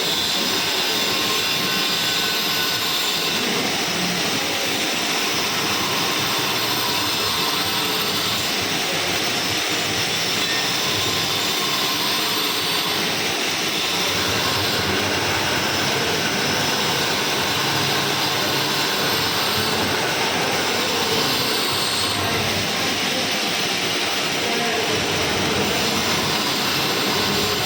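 Metal-turning lathe running steadily during a turning cut: an even machine noise with a faint high whine.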